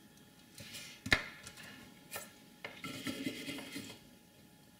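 Soldering tools being handled and set down on the bench: rubbing and scraping, one sharp knock about a second in, a click about two seconds in, then more scraping.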